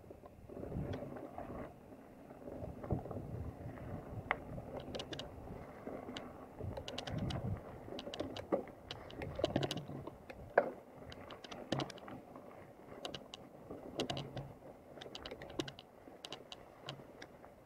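Mountain bike rolling over a dry, leaf-covered dirt trail: an uneven rumble from the tyres and frame, with many irregular sharp clicks and rattles from the bike and from leaves and twigs under the wheels.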